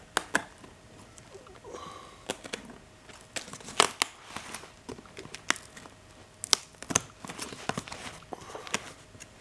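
Steel scissors cutting through clear packing tape and the cardboard seam of a shipping box: irregular sharp snips with tape crinkling. Near the end the blades cut through bubble wrap and plastic tape.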